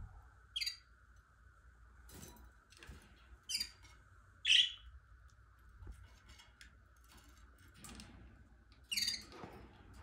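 Caged canaries giving a handful of short, high chirps spaced a few seconds apart; the loudest comes about halfway through. A faint steady hum lies underneath.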